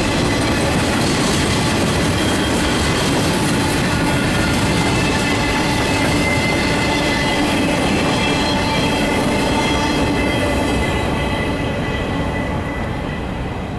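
Freight cars of a mixed freight train rolling past on the rails: a steady rumble and clatter of wheels with thin high wheel-squeal tones over it. It fades near the end as the last car goes by.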